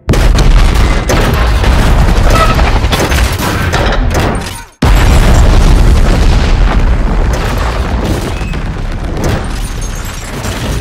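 Film sound mix of explosions, with score music underneath. A sudden loud blast rumbles for about four and a half seconds and cuts off abruptly. After a split second of silence, a second blast hits and slowly fades.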